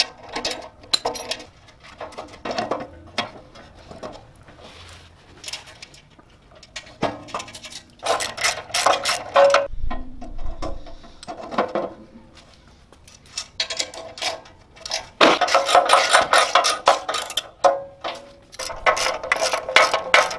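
Socket ratchet clicking in quick runs as bolts are tightened on steel press arms, with metal clinks of bolts and washers being handled.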